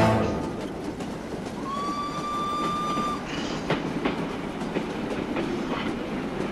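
Steam train running, its wheels clicking over the rail joints. Under two seconds in, the locomotive's whistle sounds once, a steady note lasting about a second and a half.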